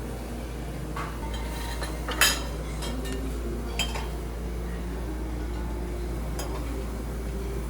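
Dishes and serving utensils clinking a few times, the loudest clink about two seconds in, over a steady low hum of restaurant background noise.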